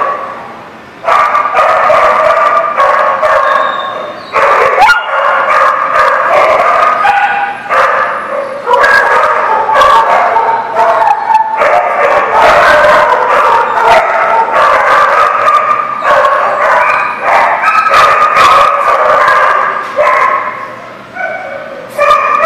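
Dogs barking and yipping, high-pitched and almost without a break, starting about a second in.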